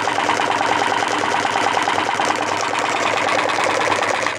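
Homemade Stirling engine running fast with a rapid, even mechanical clatter, driving an air-pressure diaphragm water pump, with water splashing from the pump's tube into a metal pot. The sound cuts off suddenly at the end.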